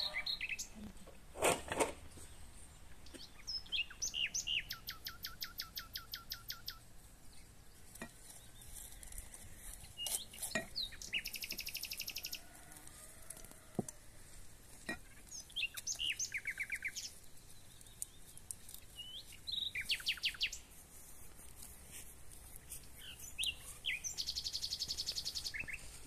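Songbirds singing: several bright trills of rapidly repeated notes and scattered chirps, with a few sharp knocks, the loudest about a second and a half in.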